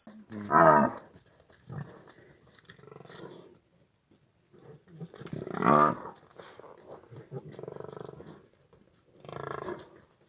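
An animal calling repeatedly in loud, harsh pitched calls; the two loudest come about a second in and near six seconds in, with quieter calls between and toward the end.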